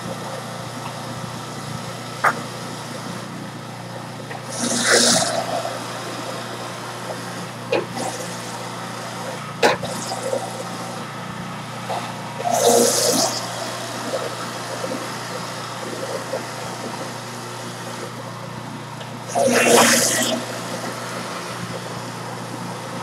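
Electric juicer running with a steady motor hum while produce is pushed down its feed chute, grinding and squelching in three short bursts about eight seconds apart, with a few light knocks in between.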